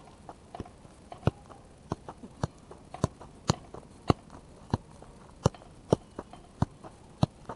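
A football being juggled, with a steady run of sharp thuds as the player's foot and knee strike the ball, about two touches a second.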